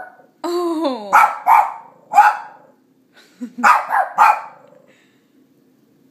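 A Shih Tzu barking: a drawn-out call that falls in pitch about half a second in, then a quick run of sharp barks, a pause, and another run of barks around four seconds in.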